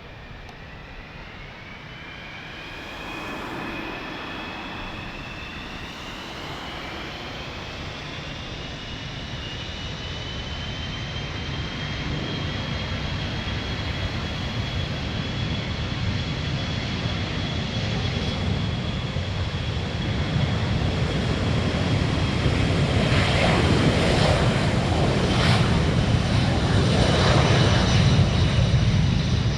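Four-engine military jet aircraft approaching, its engines a high whine over a rumble that grows steadily louder; the whine rises in pitch in the first few seconds, then holds steady.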